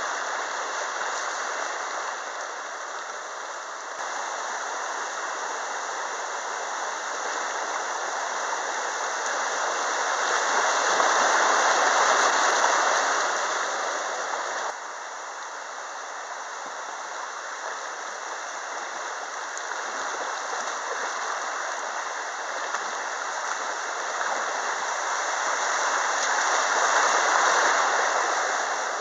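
River water rushing through riffles around a kayak's hull, a steady hiss that swells louder about ten seconds in and again near the end.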